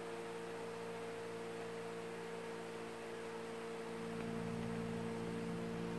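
Steady low electrical hum made of several held tones, unchanging throughout.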